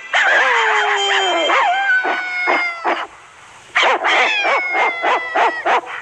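Cartoon dog howling and barking on an animated film soundtrack: a long howl falling in pitch, a few short barks, a brief pause about three seconds in, then a quick run of barks with another falling howl.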